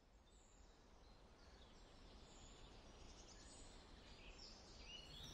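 Faint outdoor ambience fading in: soft background hiss with scattered high bird chirps.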